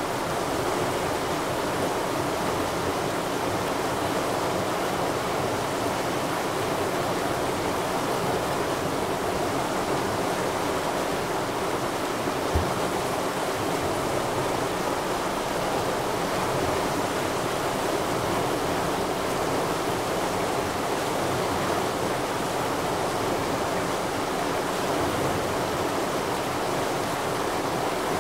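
Rushing stream, a steady even water noise. A single brief low thump about halfway through.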